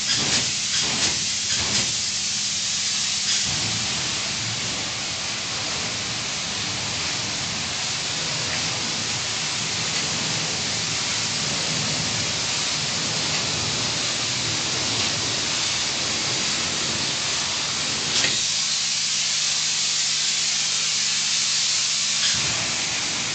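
Polyurethane spray-foam gun hissing as it sprays insulation foam, coming in a few short spurts at first and then running continuously. A few seconds before the end the lower part of the noise drops away, leaving the hiss over a low steady hum.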